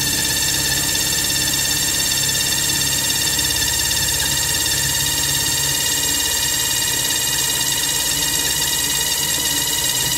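Cordless impact driver running steadily at full speed, boring a 7/32-inch hole into hard metal with a Spyder Mach Blue hex-shank drill bit, with an even, unbroken buzz.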